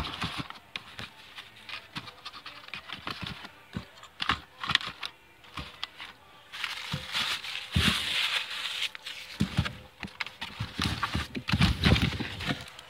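Cardboard boxes being rummaged through and pulled out of a packed shipping carton: irregular rustling and scraping with light knocks of cardboard on cardboard.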